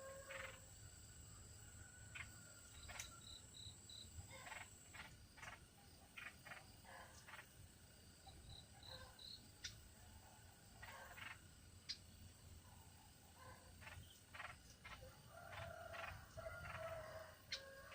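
Faint small-bird calls: scattered bursts of short chattering notes and, twice, a quick run of four high whistled notes, over a low rumble. A thin, high, steady tone stops about five seconds in.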